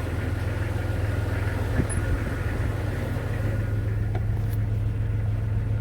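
Jeep Cherokee XJ's 4.0 inline-six engine idling steadily and evenly. Its rough, fluctuating idle has been cured by cleaning the idle air control valve and the throttle body.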